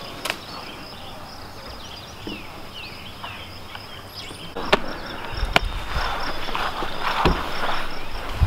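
Outdoor ambience: a steady, high, pulsing insect drone with birds chirping over it, a few sharp clicks, and louder rustling noise from about five seconds in.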